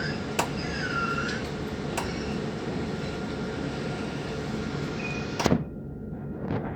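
Dubai Tram running, a steady rumble from inside the car with short squealing tones early on and a few sharp clicks. A louder knock about five and a half seconds in, after which the running noise drops.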